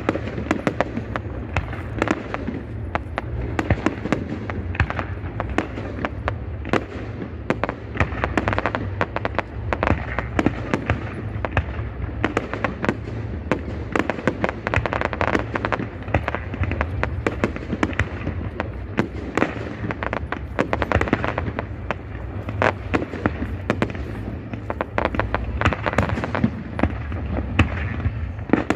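Fireworks display: a dense, unbroken barrage of sharp bangs and crackling over a constant deep rumble, swelling suddenly at the start.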